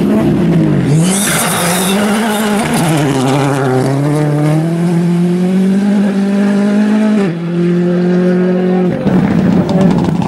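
Rally car engine at high revs, with a burst of tyre squeal about a second in. The engine note then climbs steadily for a few seconds and drops sharply about seven seconds in.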